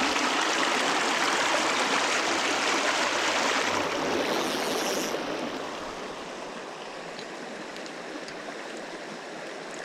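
Small creek's water rushing over rocks, a steady noise that drops noticeably in loudness about five seconds in.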